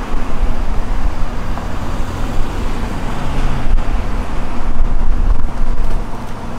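Steady noise of road traffic going by, mixed with wind rumbling on the microphone.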